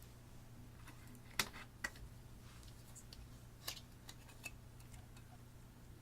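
A few short, sharp clicks and taps over a faint steady hum, the loudest about a second and a half in.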